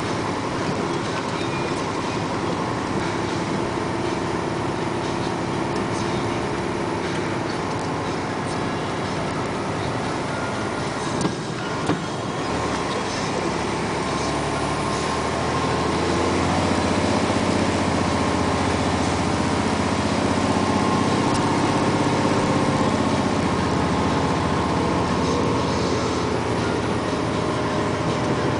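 Dump truck's diesel engine running while the truck drives a rough dirt road, heard from inside the cab, with a couple of sharp knocks near the middle. The engine gets louder and deeper a little over halfway through.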